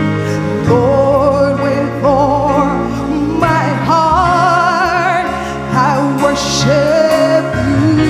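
Gospel worship music: a singer holding long notes with vibrato, apparently without words, over sustained keyboard chords and bass.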